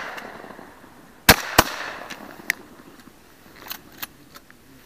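Two shotgun shots in quick succession, about a third of a second apart, a little over a second in, their echo fading away after them. A few faint clicks follow.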